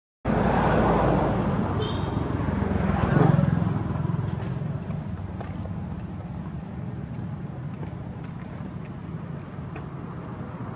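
A motor vehicle passing on the road, its engine and tyre noise swelling to a peak about three seconds in and then fading to a steady lower hum. A brief high chirp sounds about two seconds in.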